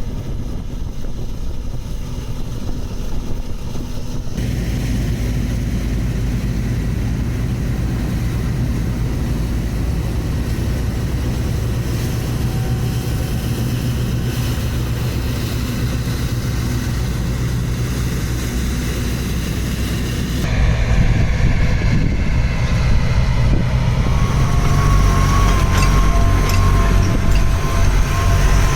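Harvest machinery running: a steady, heavy engine drone that changes abruptly twice, once about 4 seconds in and again near 20 seconds, where it gets louder. A thin steady whine joins near the end.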